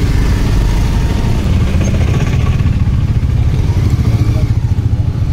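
Motorcycle engine running at low revs as the bike rolls slowly at walking pace, a steady low rumble throughout.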